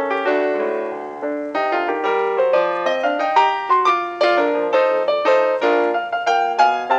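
Background piano music, a quick run of plucky keyboard notes on an even beat.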